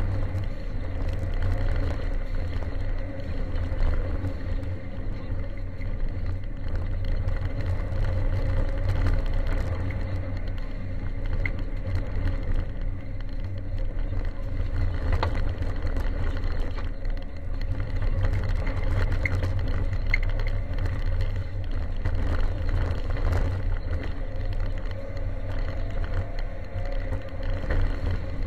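Ford Sierra Cosworth 4x4's turbocharged 2.0-litre four-cylinder engine running at speed under load on a gravel road, its revs rising and falling, with tyre and gravel noise underneath. A few sharp clicks are heard along the way.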